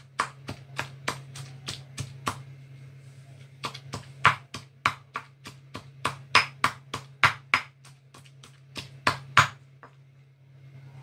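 Stone pestle pounding dried chillies in a stone mortar: sharp knocks, about three a second, with a short pause about two and a half seconds in, stopping about nine and a half seconds in. A steady low hum runs underneath.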